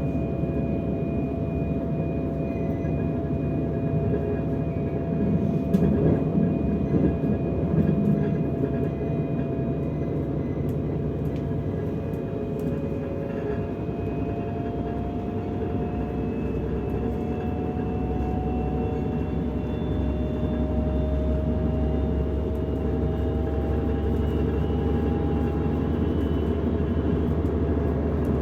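DB Class 425 electric multiple unit under way, heard from inside the passenger car: the traction converters give off thin whining tones that slowly rise in pitch as the train gathers speed, over the steady rumble of the wheels on the track. A few louder knocks come around a quarter of the way in.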